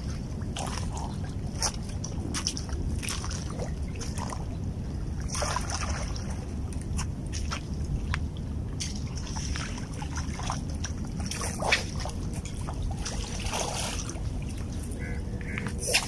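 A hooked fish thrashing at the water's surface, making irregular splashes, the loudest about twelve seconds in and again near the end, over a steady low rumble.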